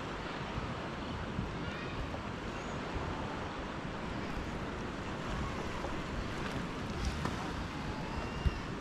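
Small waves washing up onto a sandy beach as a steady, even surf sound, with a few faint high chirps and one sharp tick near the end.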